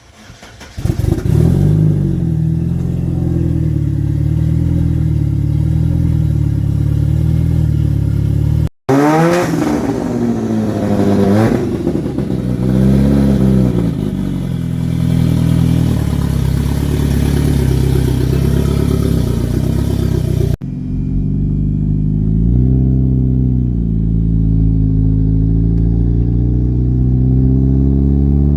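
Car engine idling on a newly fitted FuelTech FT450 standalone ECU, early in its tuning. The revs swing up and down a few times. The sound breaks off twice with hard cuts, about 9 and 21 seconds in.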